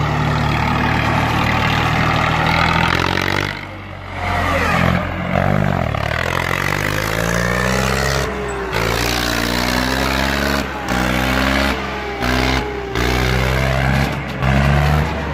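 Swaraj 960 tractor's diesel engine revving hard under heavy load while pulling harrows, its pitch rising and falling repeatedly. The sound drops out briefly several times.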